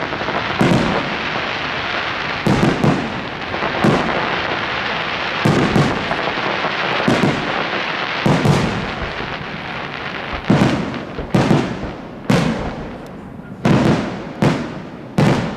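Aerial firework shells bursting in quick succession, roughly one bang a second, over a continuous hissing rush. After about ten seconds the hiss thins and the bangs stand out more sharply.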